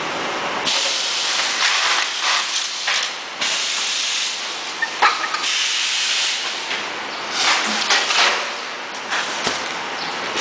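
SBS bitumen membrane production line machinery running, with a steady hissing noise and a few short clicks and knocks.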